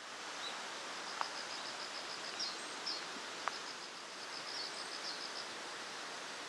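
Outdoor ambience: a steady hiss of background noise with an insect chirping in fast, even pulses, a few short higher chirps, and two faint ticks about a second and about three and a half seconds in.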